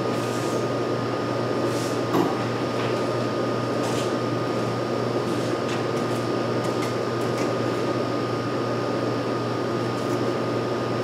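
Steady mechanical hum with a thin high whine, like a fan or air-conditioning unit running, with a few faint clicks and taps.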